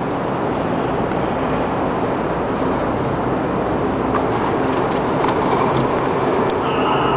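Steady rushing roar with a faint low hum, the blower of an air-supported tennis dome running. A few faint clicks come about four to six seconds in.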